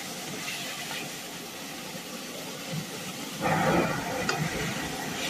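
Bamboo shoots sizzling in a metal wok as they are stir-fried with chopsticks, a steady hiss with a few light clicks. The sizzle swells louder about three and a half seconds in.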